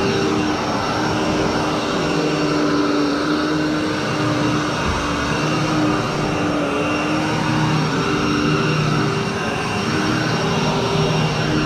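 Royal commercial upright vacuum cleaner running as it is pushed over carpet in a pre-vacuum before cleaning, a steady motor hum whose pitch wavers slightly as the load changes.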